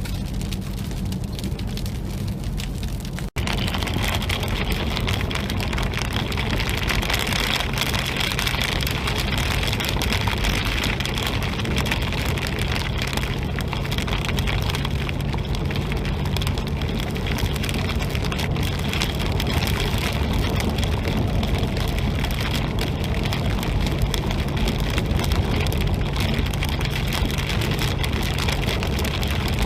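Heavy rain hitting the roof and windshield of a moving car, over a low, steady road and engine hum. The sound cuts out briefly about three seconds in, then comes back louder.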